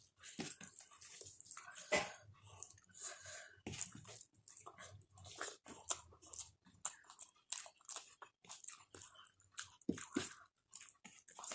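Close-miked eating sounds: a person chewing a mouthful of rice and curry, with many short, irregular wet smacks and clicks of the mouth.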